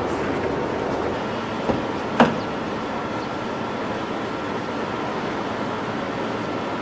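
Steady outdoor background hiss, broken about two seconds in by a sharp click, with a fainter one just before it: a car door being unlatched and opened.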